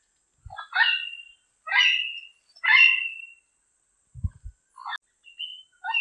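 Diademed amazon parrot calling: three loud, many-toned calls about a second apart, then several shorter, softer calls near the end. A few low thumps come in just past the middle.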